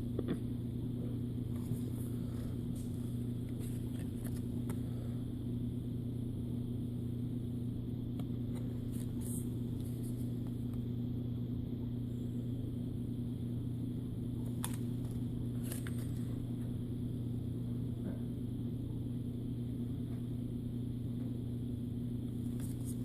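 A steady low hum holding one pitch, with a few faint clicks scattered through it.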